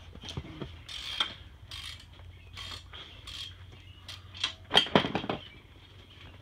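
Irregular metallic clinks and scrapes of hand tools and loose parts, with a louder burst of clatter about five seconds in.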